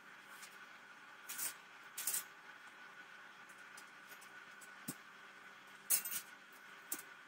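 Metal wire shelving parts scraping and clinking as they are handled and fitted together: about five short scrapes and a light click, the loudest about six seconds in, over a faint steady background tone.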